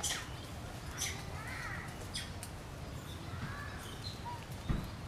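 Short animal chirps, a few quick rising-and-falling calls with sharp high clicks between them, over a steady low background rumble. A dull thump comes just before the end.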